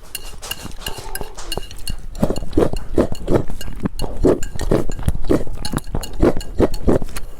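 Close-miked chewing of a mouthful of food, wet and rhythmic, about three chews a second, with light clinks of utensils on a bowl in the first two seconds.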